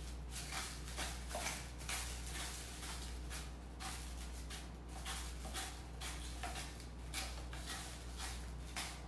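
Hand-twisted salt grinder crunching salt crystals, a string of short rasps, one with each twist.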